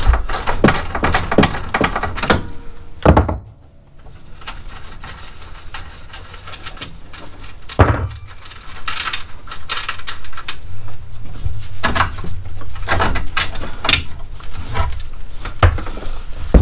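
Hand tools and metal suspension parts clinking and knocking as a UTV's front coil-over shock is unbolted and pulled free. A quick run of clicks lasts about three seconds, then come scattered clanks, with sharp knocks about three and eight seconds in.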